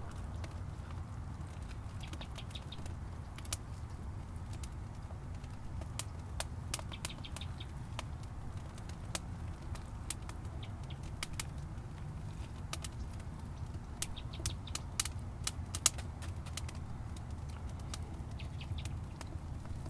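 A small woven basket and dry plant fibre handled by hand: scattered crackling and rustling clicks, thickest a few seconds before the end with one sharp snap there, over a steady low rumble.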